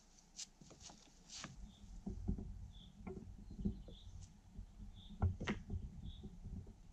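Footsteps and dry stones being handled, heard as scattered low thumps and light knocks at irregular intervals, with a faint short high chirp repeating about once a second.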